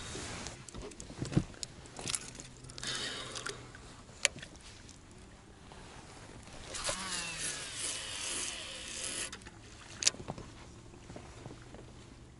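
Fishing tackle handled in a boat: scattered clicks and knocks, then a cast about seven seconds in, the reel's spool whirring as line pays out and falling in pitch for about two and a half seconds, followed by a sharp click.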